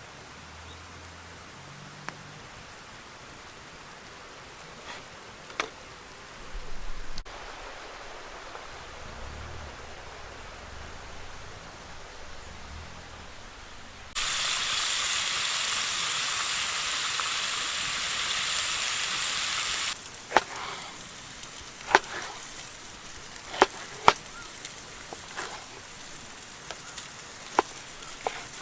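Pork loin sizzling over a campfire: a loud, even sizzle starts about halfway through and cuts off about six seconds later. It is followed by scattered sharp pops and crackles. The first half holds only faint ticks and a low rumble.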